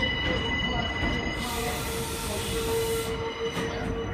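R142 subway train moving away slowly over the yard tracks: a rumble of wheels on rail with a steady wheel squeal. A stretch of hiss comes in about a second and a half in and lasts under two seconds.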